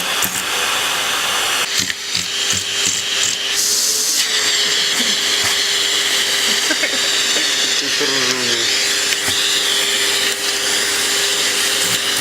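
Vacuum cleaner running steadily: a constant rushing hiss with a steady hum tone under it.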